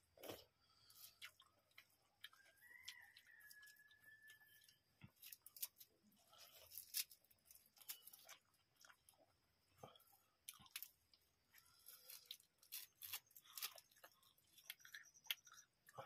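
Faint close-up eating sounds: mouths chewing and smacking on rice with okra curry and soya chunks eaten by hand, in scattered small clicks and smacks. Fingers click against the steel plates.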